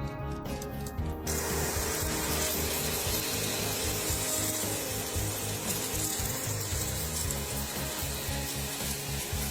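A power tool starts about a second in and runs with a steady rasping hiss, like abrasive work on metal, over background music.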